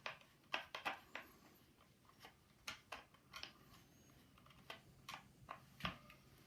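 Faint, irregular clicks and taps of metal parts being handled and fitted as the end cap is put back on a Stevens Model 820 shotgun and tightened.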